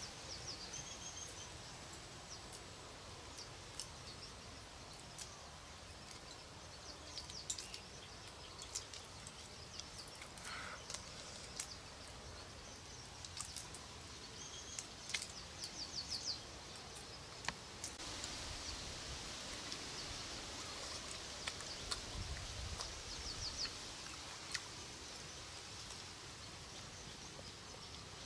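Outdoor ambience: a steady background hiss with a bird calling now and then in short rapid trills, and scattered light clicks.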